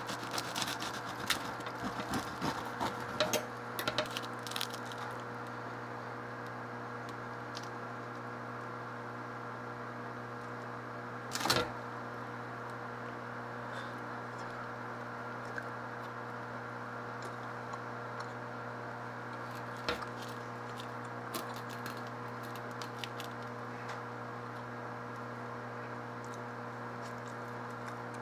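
A knife sawing through the crust of a freshly baked loaf of white sandwich bread, crackling and scraping in quick small clicks for the first few seconds. A single brief louder rustle comes about eleven seconds in, then only scattered faint clicks. A steady hum runs underneath throughout.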